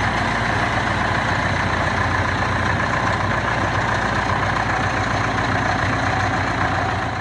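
Caterpillar D4 crawler tractor's diesel engine idling steadily.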